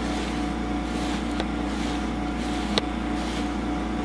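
A steady, low mechanical hum with a constant whine in it, and a light click twice.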